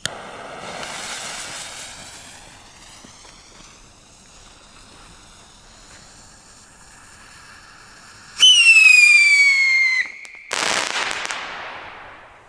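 Rolling Thunder Sky Scream whistling rocket launching with a hissing whistle that falls in pitch and fades as it climbs. About eight seconds in a loud, shrill whistle falls in pitch for a second and a half, and just after it a burst of crackling lasts about a second and a half.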